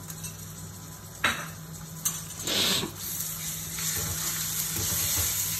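Fried onions, ginger-garlic paste and spices sizzling in a frying pan on a gas burner, with a couple of sharp clinks of a spoon against a bowl as the chilies go in. A spatula then stirs the pan and the sizzling grows louder from about three seconds in. A steady low hum runs underneath.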